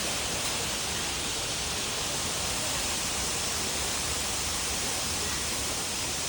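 Small artificial waterfall falling steadily: an even, unchanging hiss of splashing water.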